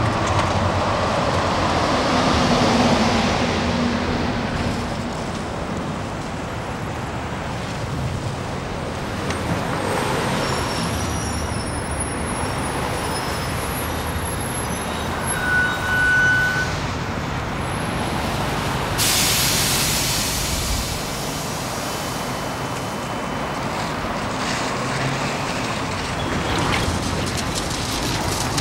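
Street traffic noise: a steady wash of passing vehicles with truck and bus engines, and a sudden hiss about two-thirds of the way through, like a truck's air brake releasing.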